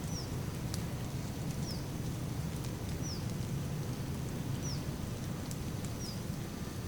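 Steady rain with scattered drop ticks, over which a short, high, falling chirp repeats about every second and a half.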